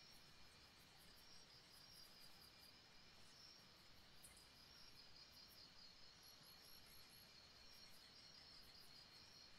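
Near silence: faint steady background hiss with a faint high, pulsing chirr.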